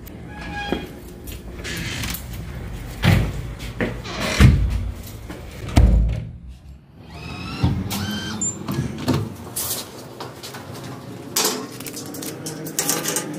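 Keys and a barred metal security gate being worked: a run of clicks, rattles and sharp metallic clanks as the lock and bolt are opened, with handling rustle between.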